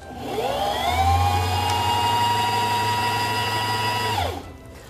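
Singer Simple sewing machine's motor winding a bobbin: a whine that rises in pitch as it spins up over about the first second, runs steadily, then winds down and stops a little after four seconds in.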